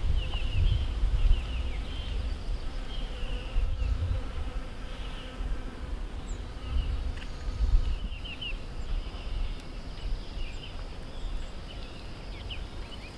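An insect buzzing steadily among small birds chirping in quick, high clusters, over a gusty rumble of wind on the microphone.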